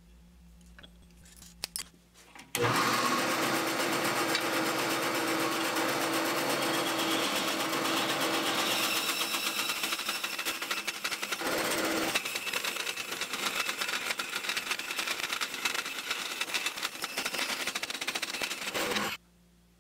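Vertical bandsaw cutting through a bar of aluminum round stock: a steady, dense cutting noise with a fine rapid ticking texture. It starts suddenly a couple of seconds in and cuts off abruptly near the end, after a few faint clicks at the start.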